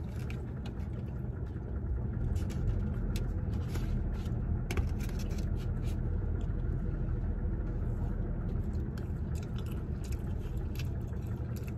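Steady low rumble of a car heard from inside its cabin, with scattered short crisp clicks of someone biting and chewing fried lumpia.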